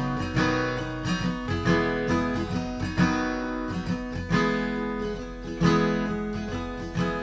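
Instrumental passage of a live band's song, led by a strummed acoustic guitar, with chords struck every second or so and left to ring.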